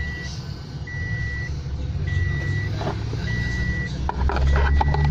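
An electronic warning beeper sounding a steady high beep about once every 1.2 seconds, over the low hum of an engine running that grows louder about four seconds in. A few clicks near the end.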